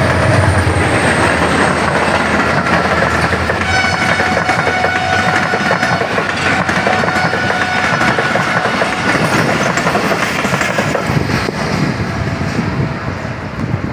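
A passenger train's coaches rolling past at speed, with the wheels clattering over the rail joints. A high-pitched tone with several evenly spaced pitches joins from about four seconds in and lasts about five seconds.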